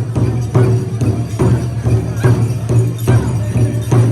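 Powwow drum beaten in a steady beat, a little over one stroke a second, with jingles rattling along in time.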